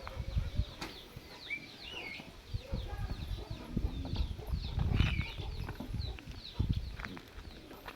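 Birds chirping: many short, high, falling chirps several times a second, with a few longer wavering calls. Low rumbling thumps run under them.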